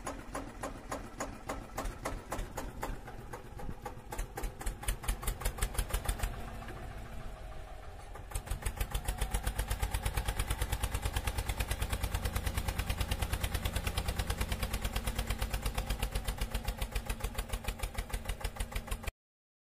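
Tractor engine chugging in a quick, even rhythm, uneven at first and steadier and louder from about eight seconds in, then cutting off suddenly near the end.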